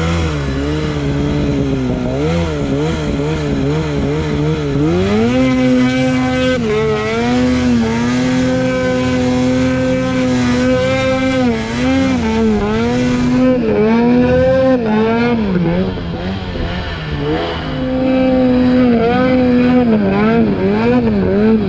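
Snowmobile engine under hard throttle, its pitch jumping up about five seconds in and held high, then dropping and climbing again several times as the throttle is worked.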